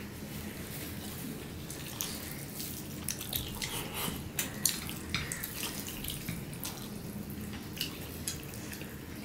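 Several people eating rice and curry with their hands: irregular wet smacks and clicks of chewing and of fingers mixing rice with curry on the plates, busiest a few seconds in.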